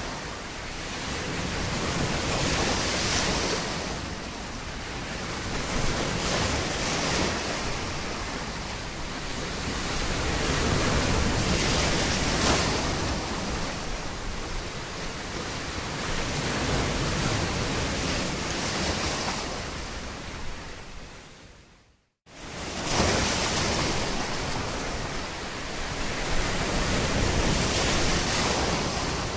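Sea waves washing in, a steady rush that swells and falls back every few seconds. About three quarters of the way through, the sound fades out to a moment of silence and then cuts straight back in.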